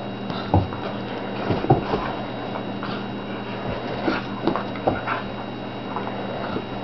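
A Jack Russell terrier and a Siberian husky play-fighting: brief dog noises and scuffles on carpet in irregular bursts, over a steady low hum.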